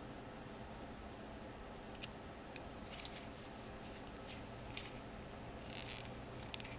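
Quiet room tone with a steady low hum and a few faint, scattered clicks and taps, like small objects being handled.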